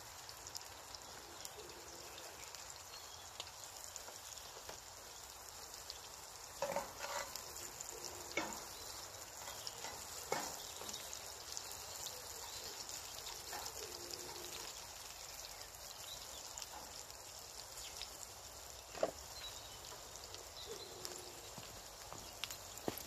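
Chopped vegetables, tomatoes and ham frying in a pan over an open fire, with a steady quiet sizzle. A few sharp clicks and knocks sound now and then.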